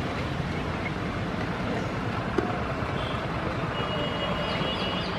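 Steady outdoor traffic noise from a road.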